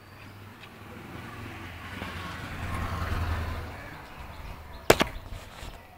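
A motor vehicle passing on the road, its rumble swelling and fading over a few seconds. Near the end there is one sharp click.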